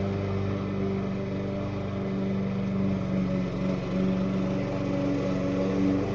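Small gasoline yard-tool engine, such as a lawn mower's, running steadily at constant speed, its pitch wavering slightly.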